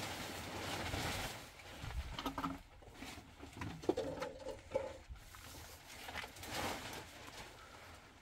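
Bird cooing: a few short, low notes about four seconds in.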